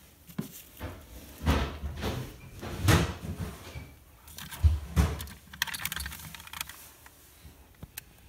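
Hand rummaging through plastic toys on a shelf: irregular knocks, bumps and rustling, with a run of quick clicking rattles about halfway through.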